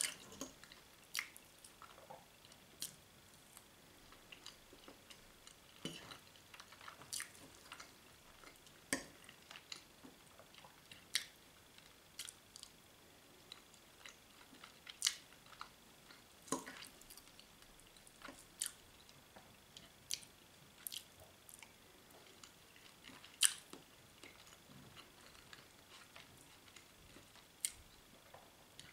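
Someone eating a meal: quiet chewing with irregular sharp clicks and taps, roughly one a second, over a faint steady high whine.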